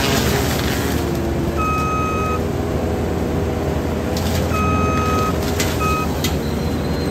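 New Holland C337 compact track loader's diesel engine running steadily under load as its disc mulcher grinds into brush, with cracks of wood being shredded. A high electronic warning beeper sounds three times, the first two about a second long and the last one short, about one and a half, four and a half and six seconds in.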